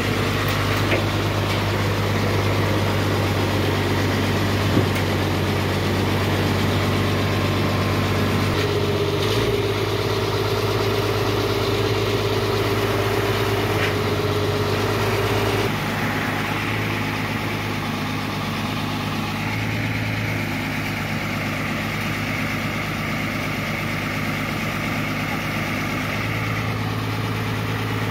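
Truck engine of a truck-mounted hydraulic knuckle-boom crane running steadily while the crane lifts a steel lattice pole. A whine comes in about a third of the way through, and a higher one near the end, as the boom is worked.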